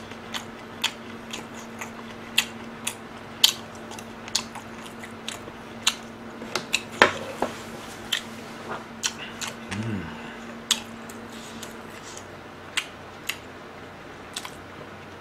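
Close-miked chewing of sauced fried chicken: a mouth working on a full bite, with many irregular sharp crunches and smacks. A brief hummed sound comes about ten seconds in.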